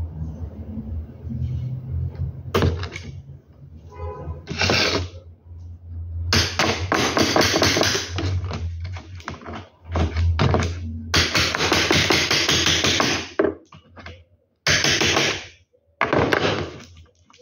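Knocks and taps of hand tools and parts on a metal window-blind headrail being assembled, in several separate bursts, with music playing in the background.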